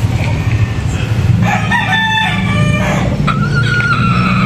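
Gamecock roosters crowing: one crow about a second and a half in, then a longer crow that holds its pitch and drops at the end, over a steady low hum.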